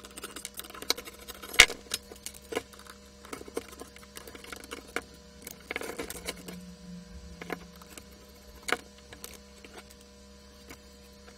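Irregular small clicks and light metallic clatters from a screwdriver, small screws and a sheet-metal chassis being handled during disassembly, with two sharper knocks about one and a half seconds in and near the end. A faint steady hum runs underneath.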